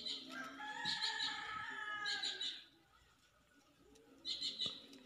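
A rooster crowing once, a drawn-out call of about two seconds. A bird's quick, high chirping trills repeat around it, once more near the end.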